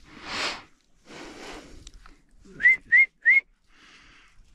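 Three short rising whistle blasts in quick succession, a hunter's whistle signal to his bird dog. Softer swishing noises come before them.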